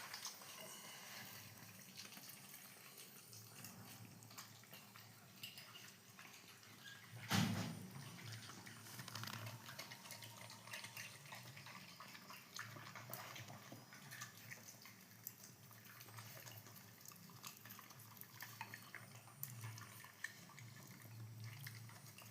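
Dogs eating soft papaya: faint, wet chewing and smacking with many small clicks, and one louder thump about seven seconds in.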